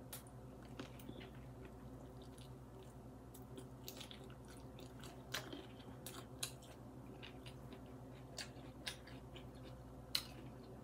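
A person biting into and chewing a rice paper roll filled with grilled steak and vegetables: faint, scattered mouth clicks at irregular intervals.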